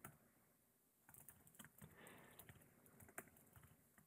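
Computer keyboard typing: a dozen or so faint, irregular keystrokes.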